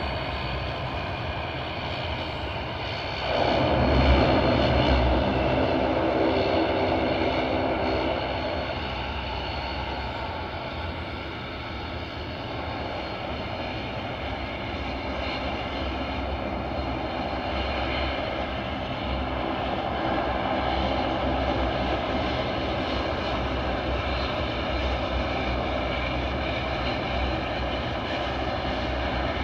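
Bombardier Dash 8 Q400 turboprop engines running as it lines up for takeoff, a steady hum with several held tones. It suddenly swells about three seconds in, eases off after several seconds, then slowly builds again.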